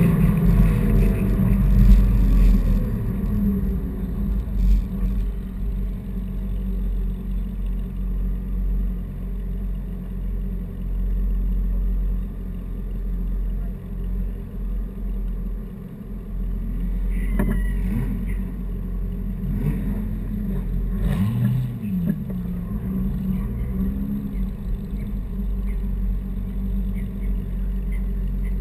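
A car engine running low in slow city driving, with heavy rumble from a hood-mounted camera. A short rev rises and falls twice about two-thirds of the way through.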